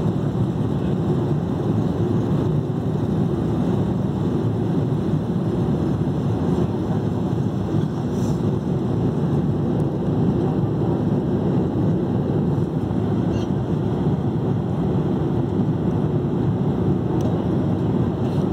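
Steady cabin noise of a Boeing 787-8 airliner at cruise: a constant low rush of airflow and engine drone heard from a window seat.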